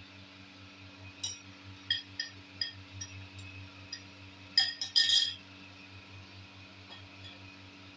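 A spoon clinking and scraping against a ribbed glass bowl while egg mixture is emptied into a frying pan: a few light ringing taps, then a louder cluster of clinks about five seconds in. A steady low hum runs underneath.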